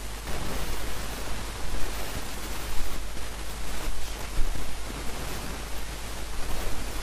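Steady hiss of background noise with a low hum beneath it.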